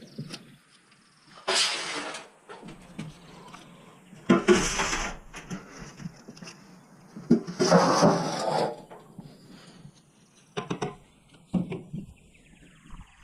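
Scraping strokes on the steel inside a commercial smoker, working sludge and patina off the walls: five separate strokes, each about a second long or shorter, a few seconds apart.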